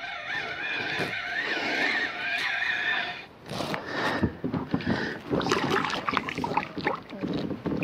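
A spinning reel being cranked, a wavering whine for about three seconds as the line comes in, then irregular splashing and knocks as a small burbot is brought thrashing to the surface beside the kayak.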